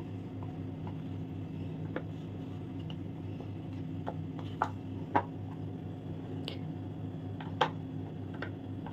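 Light clicks and taps as set chocolates are pushed out of a flexible silicone mould and set down on a hard textured tray, about seven in all, the sharpest about five seconds in and near the end, over a steady low hum.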